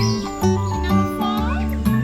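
Background music with a rhythmic line of held bass notes, with a few short chirping glides about a second in.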